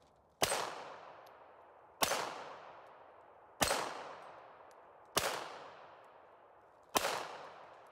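Five handgun shots fired at a slow, steady pace about one and a half seconds apart, each followed by a long echoing tail.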